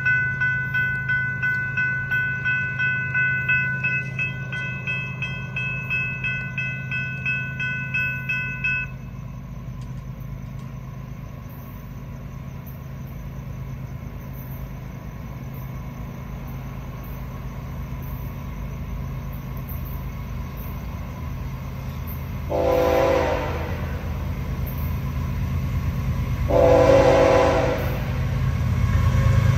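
Railroad crossing bells ringing about twice a second for the first nine seconds. Then an approaching diesel freight locomotive's low rumble builds steadily, and its air horn sounds two blasts, about a second long each, near the end, with a third starting at the very end.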